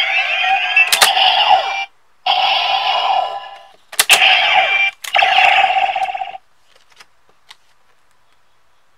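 Kamen Rider Decade DX Decadriver toy belt playing its electronic sound effects, in several loud bursts of synthesized chimes and sweeping tones. Sharp plastic clicks come about a second in and again around four and five seconds in as the card and side handles are worked. The sound stops about six and a half seconds in, followed by a couple of faint handling clicks.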